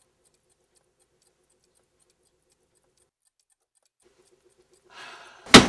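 Clock ticking faintly and evenly, stopping briefly about three seconds in and starting again. Near the end, a rustle and then one loud thump.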